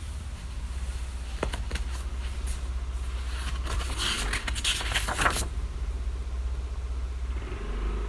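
A paper page of a hardcover book being turned by hand: two light finger taps on the page about a second and a half in, then a crisp rustle and flap of paper from about four to five and a half seconds in. Under it, a steady low rumble of road traffic.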